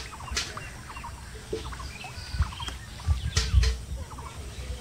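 Small birds chirping repeatedly, with a few dull knocks and thumps, the loudest cluster a little past three seconds in.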